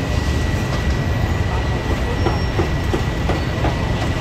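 Steady low rumble of busy street ambience with traffic.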